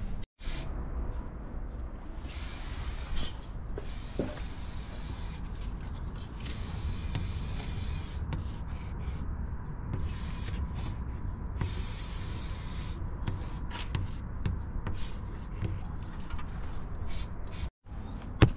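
Paint marker tip rubbing across window glass as a tag is written: a run of scratchy strokes, each lasting from half a second to two seconds, with short pauses between them.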